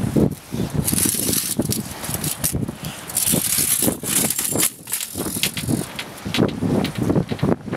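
Scraping, rattling and knocking from a steel grating being handled and moved on concrete, with irregular knocks and stretches of rough hiss.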